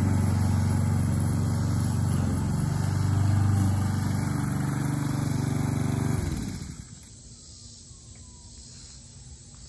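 Lawn mower engine running steadily, then shut off about six seconds in, its pitch dropping as it winds down to a stop.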